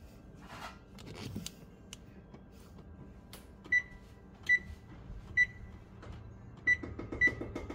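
Oven control keypad beeping as its buttons are pressed to set the preheat temperature: five short, high electronic beeps in the second half, unevenly spaced.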